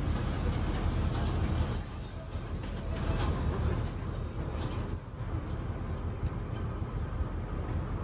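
Heritage passenger carriages rolling slowly past on a curving track with a steady low rumble. High-pitched wheel squeals come about two seconds in and again around four to five seconds in.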